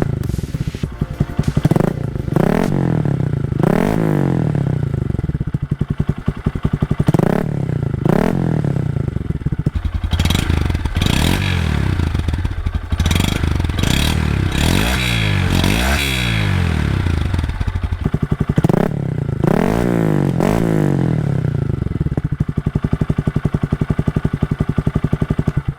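2025 Honda Grom's single-cylinder engine through a Zoom Loop low-mount full exhaust, revved in a string of quick throttle blips that each rise and fall in pitch, with harder revs about halfway through. It cuts off suddenly at the end.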